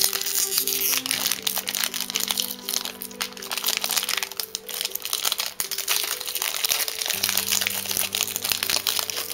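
Plastic snack wrapper crinkling and crackling as it is opened and handled, over background music with long held notes.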